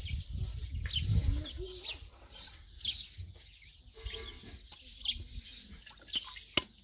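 Small birds chirping, short high chirps repeating a few times a second. A low rumble peaks about a second in, and a couple of sharp clicks come in the second half.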